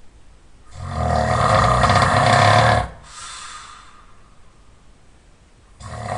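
Loud snoring: one long rasping snore of about two seconds, a faint breath out after it, then the next loud snore starting near the end.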